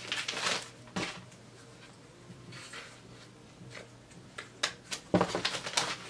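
Yellow padded paper mailer rustling and crinkling as it is torn open and handled, briefly at the start and louder near the end, with a few light clicks shortly before the louder rustle.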